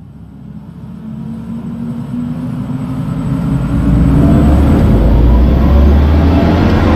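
Audi e-tron GT's synthetic drive sound, a deep electronic hum that swells over about four seconds, rising slightly in pitch, then holds loud.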